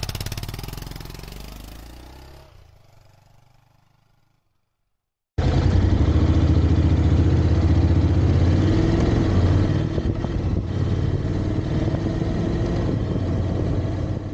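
Honda X-ADV's 745 cc parallel-twin engine running under way, accelerating, loud and steady; it comes in abruptly about five seconds in, after an opening sound fades away over the first four seconds into a moment of silence.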